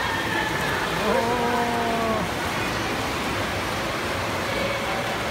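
Steady rush of water from swimmers splashing down their lanes in a race, echoing in an indoor pool hall. About a second in, someone lets out a long, drawn-out shout.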